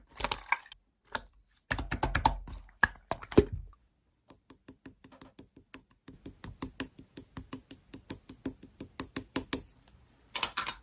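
Rapid keyboard typing clicks, about seven a second, running from about four seconds in until near the end, after a few louder, irregular noises in the first three and a half seconds.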